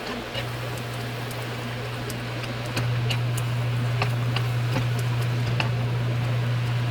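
Kitchen cooking sounds: a steady low hum, louder from about three seconds in, with scattered light ticks and clicks.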